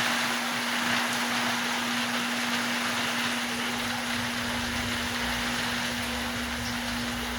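Steady rushing water noise from an aquarium, with a constant electric hum from its pump or filter motor; a low rumble comes in about halfway through.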